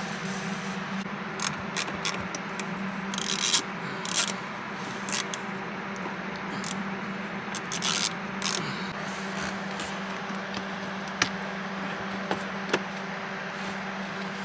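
Plastic console trim being handled and worked loose, with bouts of rubbing and scraping and two sharp clicks near the end, over a steady low hum.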